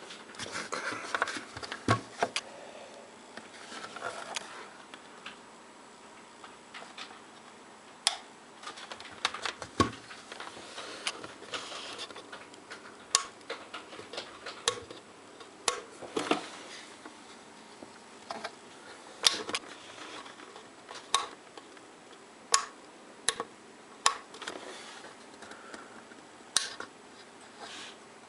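Irregular sharp clicks and light knocks, about one every second or two, from handling a US-210A manicure machine and its handpiece.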